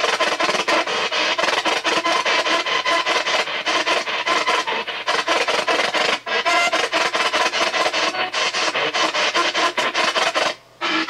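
P-SB7 spirit box sweeping the AM radio band: a rapid, even chopping of radio static, with brief fragments of broadcast sound as it skips from station to station. It cuts out briefly about six seconds in and again just before the end.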